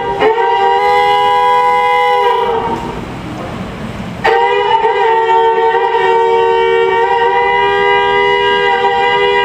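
Fiddle imitating a steam-train whistle: long bowed two-note chords held steady, the first stopping about two and a half seconds in and a second, longer one starting about four seconds in.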